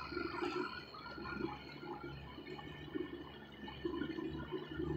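River water gurgling and lapping against the hull of a small boat as it moves slowly along.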